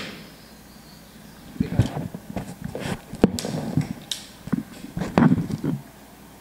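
The tail of a Gamo Whisper X break-barrel air rifle shot dies away at the start. Then, from about a second and a half in, comes a run of clicks and clunks as the barrel is broken open to cock the rifle, with one sharp click near the middle.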